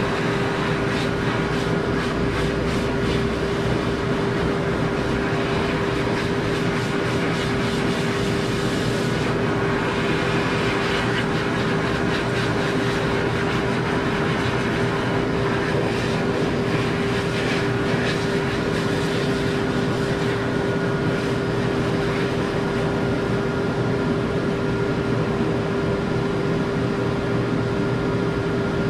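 Pet blow dryer running steadily, air rushing out of its hose nozzle over a constant motor hum. The hiss grows brighter for a few seconds about nine seconds in, as the nozzle is moved.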